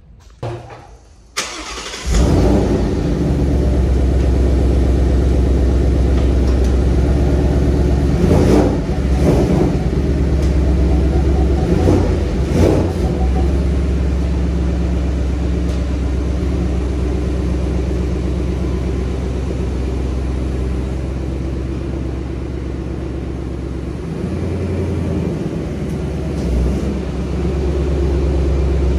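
Ford Mustang GT's 5.0 V8 cranked and started, catching with a loud flare, then running at a steady idle with a couple of short throttle blips. Near the end the engine note shifts as the car creeps forward at low speed.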